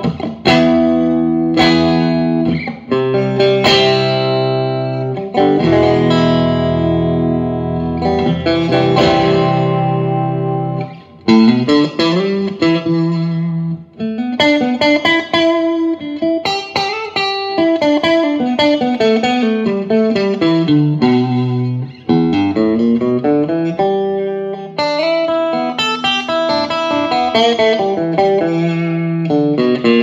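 Electric guitar played through a Vox AC10 C1 valve combo amplifier: held strummed chords for the first ten seconds or so, then, after a short break, runs of single notes climbing and falling.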